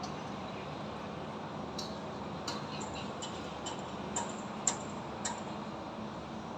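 Construction work tapping on metal: about nine sharp, irregularly spaced clinks with a short ring, the loudest a little past the middle, over a steady hum of distant city traffic.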